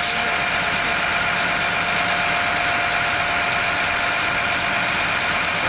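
Diesel engine of a stopped coach bus idling steadily, a continuous even running sound with a faint steady tone over it.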